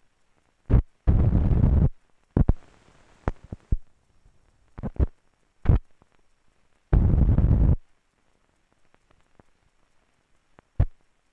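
Scattered pops and clicks from an old film soundtrack as a countdown leader runs, with two loud bursts of deep, rough noise, each just under a second long, about a second in and about seven seconds in.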